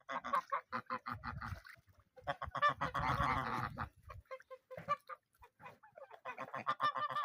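Several geese honking in repeated short calls, thickest and overlapping about halfway through, with scattered single honks before and after.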